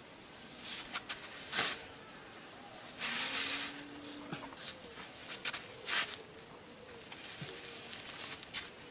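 A fingertip dragged through loose black sand, scraping out the lines of a sand drawing: a series of short scraping strokes, the longest lasting most of a second about three seconds in.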